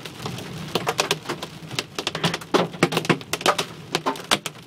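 Hailstones pelting the car's roof and windshield, heard from inside the car: a dense, irregular clatter of sharp ticks and knocks.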